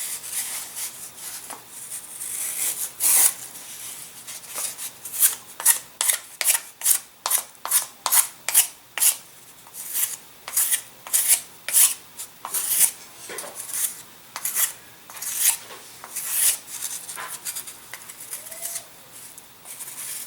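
Razor plane shaving the model aircraft's wing to shape the airfoil and wingtip: repeated short scraping strokes, about two a second.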